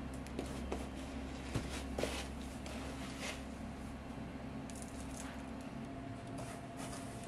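Hands breading meat for frying: wet batter squishing as slices are lifted from the bowl, and dry bread crumbs rustling and crunching as the meat is pressed into the tray, in irregular soft strokes with a few sharper clicks. A steady kitchen hum runs underneath.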